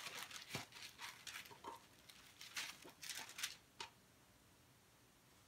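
Parchment paper rustling and crinkling in a series of short crackles as sticky ground-chicken crust mixture is handled and pulled off it by hand, stopping about four seconds in.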